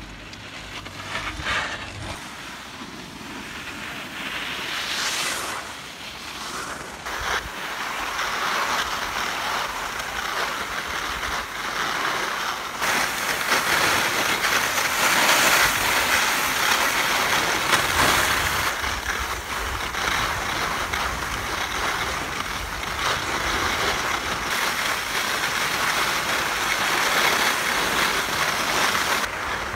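Salomon skis sliding and scraping over groomed snow on a downhill run, with wind rushing over the microphone. The noise is quieter at first and grows much louder after about seven seconds.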